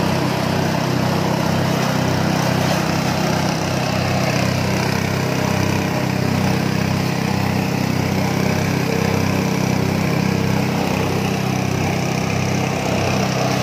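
Small single-cylinder petrol engine running steadily at constant speed, driving a grass chopper's cutting drum as it shreds grass stalks.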